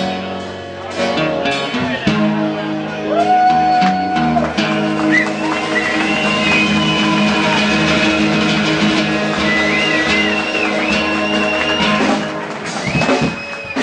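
Live band music with a guitar to the fore, long held notes bending up and down in pitch over a steady backing; the sound thins out briefly near the end.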